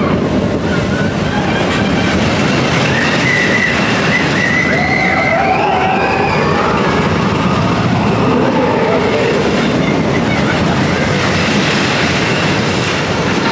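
Expedition Everest roller coaster train running along its track, a loud, steady rumble and rattle of the cars and wheels.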